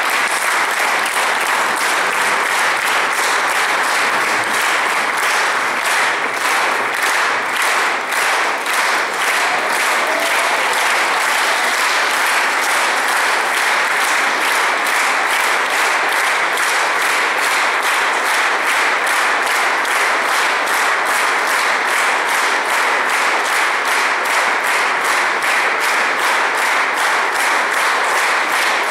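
Audience applauding, a standing ovation of many hands clapping steadily. About halfway through the claps fall into a more even rhythm, the audience clapping together in time.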